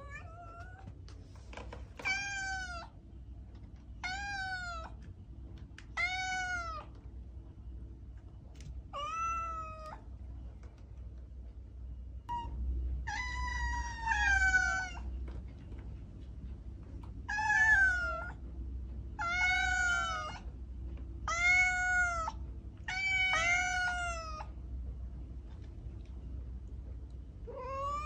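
A cat meowing over and over, about ten meows each rising and then falling in pitch, mostly about two seconds apart, with a longer drawn-out meow a little before the middle. A steady low hum runs underneath.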